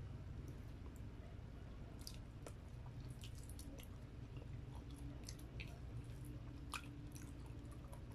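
Faint chewing of fried chicken and rice: soft wet mouth clicks and smacks scattered throughout, over a steady low hum.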